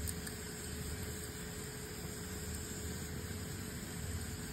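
Steady low rumble with a faint hum and light hiss: kitchen background noise while the pan sits on the stove, with no sizzling or bubbling standing out.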